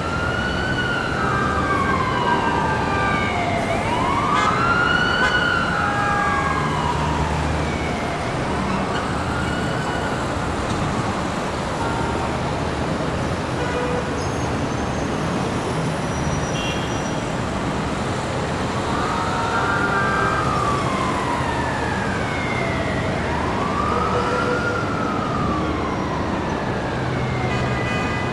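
Busy city street ambience: a steady wash of traffic noise with an emergency-vehicle siren wailing, its pitch slowly rising and falling every few seconds. The siren drops out for several seconds midway, when a few short steady tones sound, and returns near the end.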